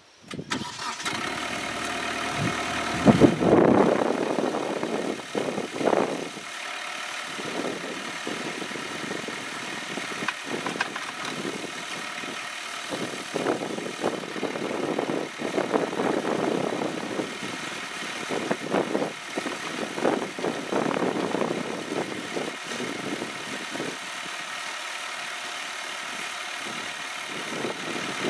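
Kubota B7800 compact tractor's three-cylinder diesel engine starting and running, driving a PTO post-hole auger that bores into the soil. The sound comes in suddenly right at the start, is loudest about three seconds in, then carries on with an uneven, fluctuating note as the auger works under load.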